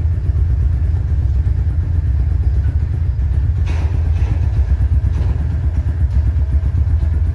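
The 250cc engine of a YCR 250 sport motorcycle idling steadily, a loud, even low-pitched idle.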